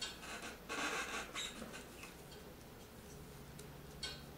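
Hands handling a small plastic graphics card fan: scratchy rubbing and rustling for the first second and a half, then quieter, with a single sharp click about four seconds in.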